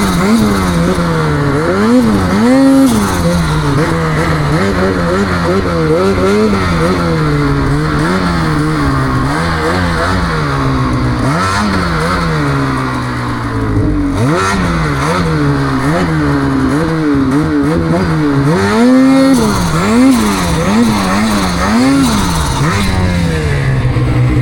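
Snowmobile engine revving up and down over and over, its pitch rising and falling every second or two as the throttle is worked to push the sled through deep snow.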